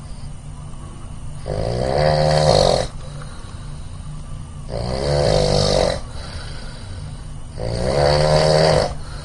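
A person snoring: three snores about three seconds apart, each lasting just over a second, with a quieter low rumble between them.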